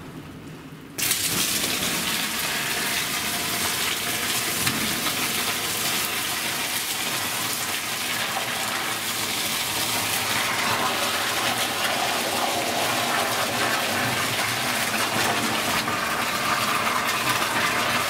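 Molten lead pouring in a steady stream from a crucible into a steel boat keel cavity: a continuous gushing hiss that starts abruptly about a second in.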